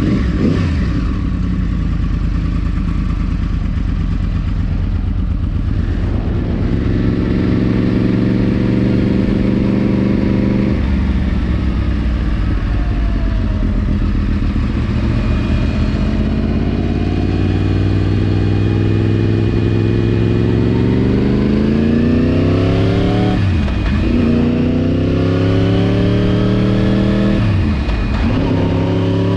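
Yamaha YZF-R1 inline-four sport-bike engine under way, its pitch climbing as the bike accelerates, easing back, then climbing again. Near the end it makes two quick upshifts, the pitch dropping sharply and climbing again each time.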